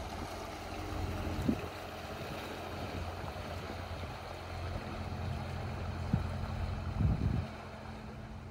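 Inboard engine of a motor cruiser running at a steady low throb as the boat passes and draws away. A few brief thumps stand out, about a second and a half in and again near the end.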